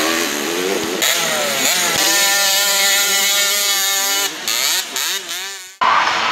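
A motocross bike's engine revs hard through a climb, its pitch rising and falling with the throttle and holding a high steady note through the middle. It then stutters and falls away. About six seconds in it cuts abruptly to many motocross bikes revving together on the start line.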